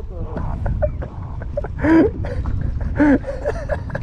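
A man's voice giving two short, loud exclamations about 2 and 3 seconds in, in the excitement of fighting a hooked fish, over a steady low rumble.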